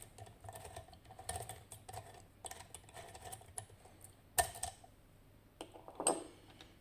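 Small metal clicks and taps of a lock pick and tensioner being handled at a Tokoz Tech lock, irregular throughout. The loudest click comes about four and a half seconds in, and a duller knock follows about a second later.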